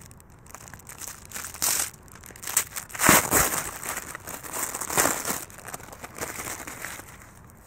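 The red paper wrapper of an old Chinese firecracker pack being torn open and crumpled by hand, in several crinkling bursts, the loudest about three seconds in.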